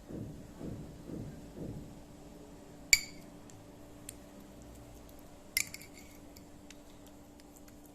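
A metal spoon scraping softly in a dish, then clinking sharply against it twice, about three and five and a half seconds in, each clink ringing briefly.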